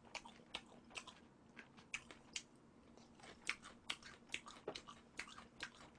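A person chewing sauced boneless fried chicken close to the microphone: faint, irregular wet clicks and small crunches, several a second.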